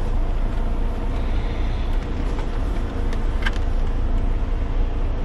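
Car engine running at idle with a steady low rumble, heard from inside the car, with one brief click about three and a half seconds in.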